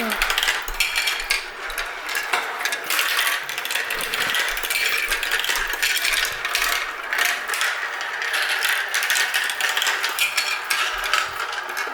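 Many marbles rolling and clattering down a marble run track, a dense continuous stream of small clicks and rattles.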